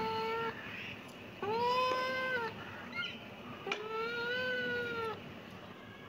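Kitten meowing over and over in long, drawn-out meows that rise and fall slightly in pitch. One meow ends just after the start, then two more follow, each lasting a second or more.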